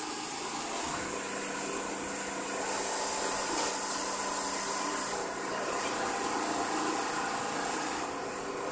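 Steady mechanical running noise of Richpeace automatic template sewing machines, a continuous hum with a few held tones under a high hiss.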